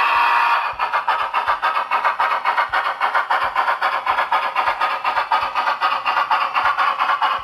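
Sound decoder (SoundTraxx Tsunami 2) in a model Union Pacific articulated steam locomotive: a steady multi-tone steam whistle blast that cuts off about a second in, then fast, even exhaust chuffs as the locomotive runs.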